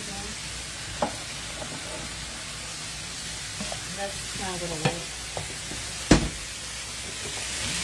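Shrimp frying in a pan with a steady sizzle, stirred with a utensil that clacks against the pan now and then. The loudest clack comes about six seconds in.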